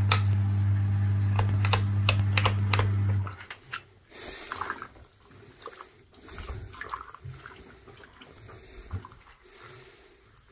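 A loud, steady machine hum with sharp metallic clinks cuts off abruptly about three seconds in. After it, soapy water splashes and sloshes in bursts as a screwdriver pokes into the clogged, flooded floor drain.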